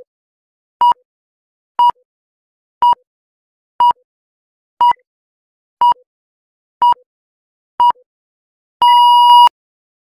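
Workout timer's electronic countdown beeps: a short, steady beep once a second through the last seconds of the set. Near the end comes one longer beep of about half a second, signalling that the set is over.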